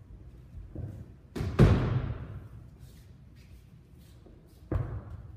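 Two heavy thuds of bodies landing on a training mat, typical of aikido breakfalls as a partner is thrown: the first and loudest about a second and a half in, with a rushing slap that fades over most of a second, and a shorter one near the end.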